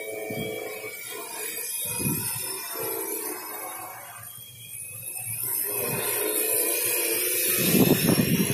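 Quadcopter drone's electric motors and propellers buzzing as it flies close overhead, growing louder near the end as it comes nearer.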